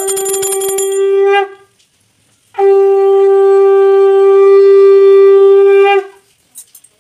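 Conch shell (shankha) blown as part of a home puja, in two long steady notes. The first note ends about a second and a half in. The second lasts about three and a half seconds. A small hand bell rings rapidly through the first second.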